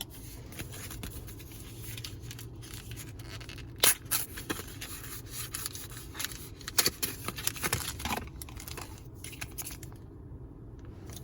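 Foil booster pack wrapper being handled and torn open: crinkling with sharp crackles, the loudest about four seconds in and most of them in the middle of the stretch.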